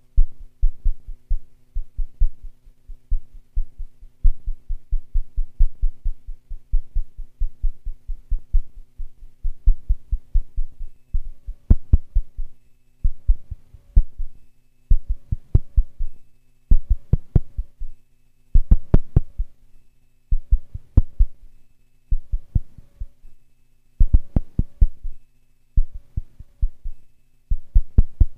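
Phenol analog patch synthesizer playing a rapid stream of low, heartbeat-like thumps over a steady low drone. From about ten seconds in the thumps come in clusters with short gaps, and faint short high blips join them.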